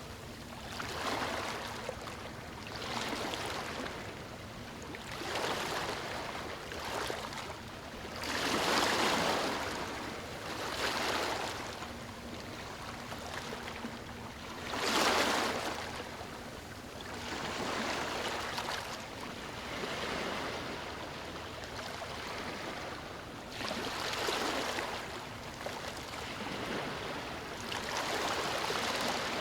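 Ocean waves breaking and washing up onto the shore, the surf swelling and fading every couple of seconds, with larger breakers about nine and fifteen seconds in.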